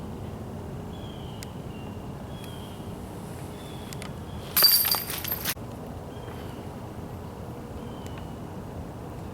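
A disc golf disc hitting a basket's chains: a sudden metallic jangle of chains about halfway through, ringing for about a second before it dies away.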